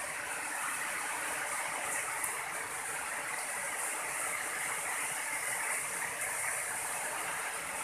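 Steady rain falling on roofs and the ground, an even hiss.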